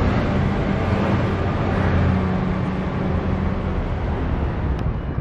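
City street traffic: a steady rumble of vehicle engines with a low, even hum, as from an idling car or truck.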